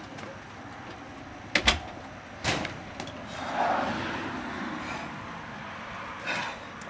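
A front storm door bangs shut with a sharp double clack about a second and a half in, followed by another knock about a second later, then footsteps on concrete steps and a walk.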